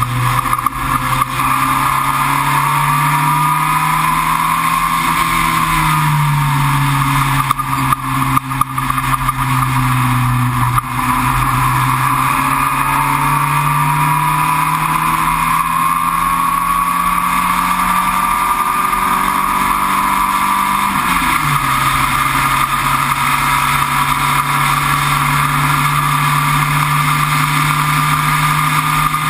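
Sports racer's engine heard from onboard at track speed, its pitch climbing slowly as it pulls, dipping briefly about six seconds in and dropping suddenly about twenty-one seconds in as at a gear change. Wind and road noise run under it throughout.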